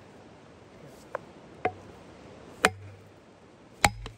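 Axe blows driving a PowerWedge plastic felling wedge into the back cut of a tree: three hard strikes about a second apart, with a couple of lighter taps, each a sharp knock with a short ring. The wedge slides further into the cut with each blow, lifting the tree toward its fall.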